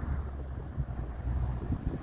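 2003 Mercedes SL55 AMG's supercharged V8 exhaust rumbling low as the car drives away, fading with distance.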